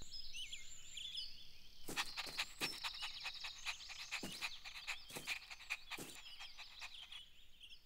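Faint cartoon garden ambience: short high chirps at first, then a steady high-pitched buzz with a quick run of soft clicks that stops shortly before the end.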